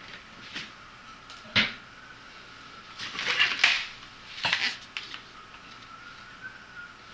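A sharp knock, then about a second of scraping and clattering, then another short clatter, like objects being handled in a room. A faint steady high tone lies underneath.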